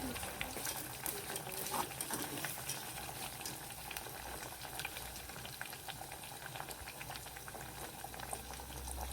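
Breaded potato slices (mojos) deep-frying in hot oil in a wok on their first fry, a steady sizzle of many fine crackles and bubbles.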